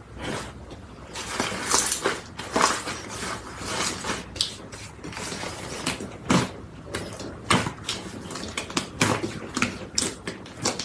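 Slime being worked by hand, making irregular sticky crackles, clicks and small pops at an uneven, fairly quick pace.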